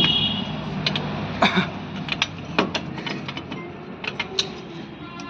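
Irregular metallic clicks, clinks and scrapes of a tool working a drum-brake shoe return spring free, with a low steady hum beneath.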